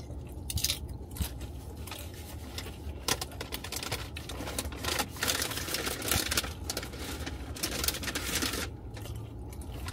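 Close-up chewing of food from a burrito bowl: irregular crisp crunching, clicks and smacks from the mouth, over a low steady hum.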